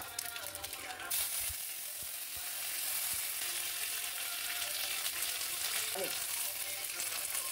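Tadka of mustard seeds, cumin, urad and chana dal sizzling in hot oil in a steel kadai, with green chilies and curry leaves going into the oil. The sizzle turns suddenly louder about a second in and then holds steady.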